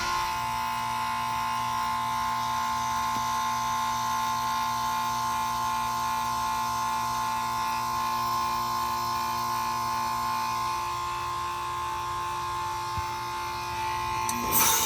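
Outdoor unit of a 2003 Lennox Merit Series 2-ton heat pump in defrost, its compressor giving a steady buzzing hum. Near the end comes a short, loud whoosh.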